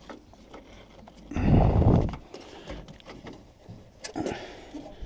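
Knocks and clicks of hands working a wiring loom loose inside a van door, with a loud rubbing scrape lasting about a second, about a second and a half in.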